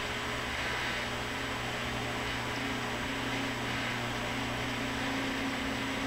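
Front-loading washing machine tumbling a wash load: a steady motor hum with water and suds sloshing in the turning drum, and a low whine that comes and goes.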